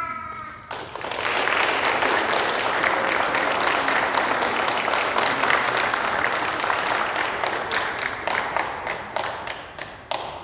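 Audience applauding, starting just under a second in after a held musical note ends, then thinning to scattered claps near the end.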